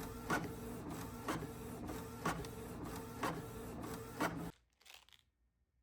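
Desktop paper printer printing a sheet of eyes, its print head shuttling back and forth with a sharp click about once a second. It cuts off suddenly near the end.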